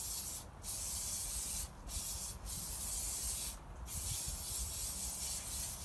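Aerosol can of 3M Super 77 spray adhesive hissing as it sprays foam pads, in about five bursts with short breaks between them.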